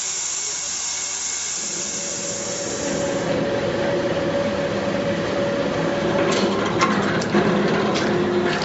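Sawmill machinery running with a steady hum and hiss, getting fuller and louder about two seconds in. Several sharp knocks come near the end.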